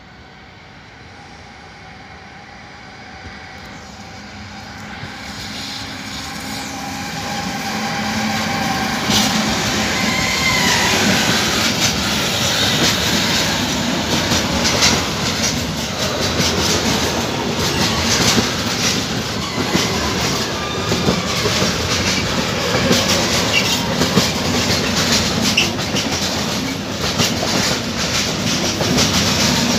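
Intermodal freight train approaching and then passing close by, its pocket wagons loaded with semi-trailers. It grows louder over the first eight seconds or so, then holds a steady loud rumble of rolling wagons with rapid wheel clicks.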